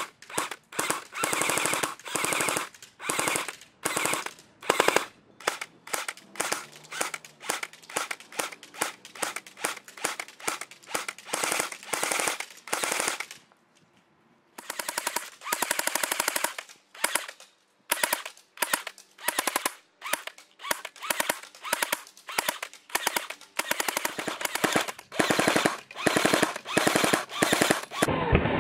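ICS MP5 airsoft electric gun firing on full auto in repeated bursts of about one to two seconds, a rapid mechanical clatter of shots with short pauses between bursts.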